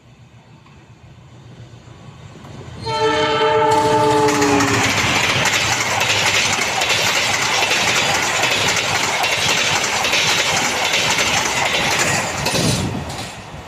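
Diesel locomotive horn sounding the semboyan 35 warning signal, one blast of about two seconds whose pitch sags slightly as the train closes in. Then the loud rush and rail clatter of the train passing close by for about nine seconds, fading and cutting off near the end.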